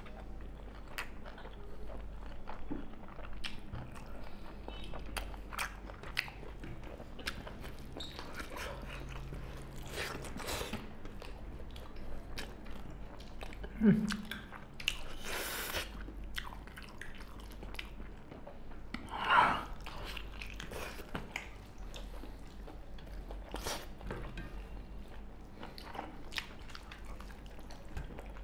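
Two people chewing and eating pork curry and rice with their hands: wet mouth clicks, smacks and crunching throughout, with a few louder noises around the middle.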